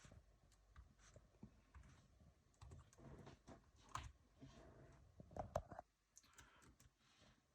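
Faint, scattered clicks of a Lenovo IdeaPad Gaming 3 laptop's keyboard and touchpad being used.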